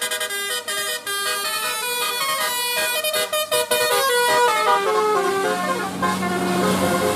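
Indonesian bus 'telolet' horn, a multi-tone musical air horn, playing a tune: a run of quick notes that slows into a falling line of longer notes. A steady low hum sits under it in the second half.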